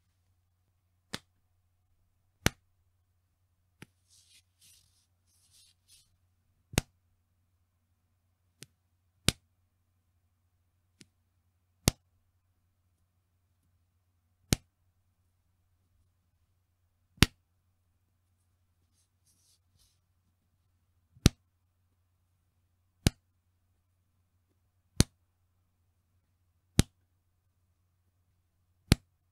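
Bra's elastic band being snapped, a sharp 'pechin' smack about fifteen times, roughly every two seconds, a few strikes much fainter than the rest. A faint rustle comes twice between the snaps.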